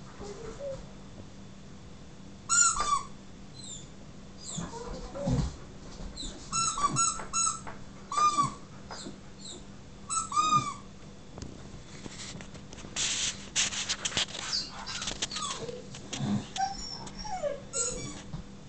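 Squeaky toy squeaking in short, high-pitched squeaks, repeatedly, as Siberian huskies play with it, mixed with the huskies' whines and yips. A stretch of scuffling around the middle.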